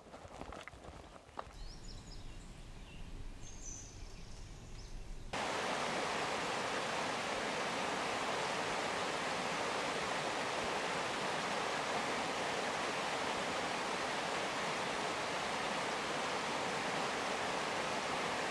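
Footsteps on a dirt trail, then a few quiet seconds. About five seconds in, a creek rushing over rocks and small cascades cuts in abruptly and runs on steadily as a loud, even rush.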